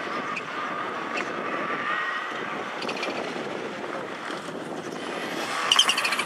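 Subaru Impreza WRC rally car approaching at speed, its turbocharged flat-four engine growing louder as it nears. Near the end come a few sharp cracks.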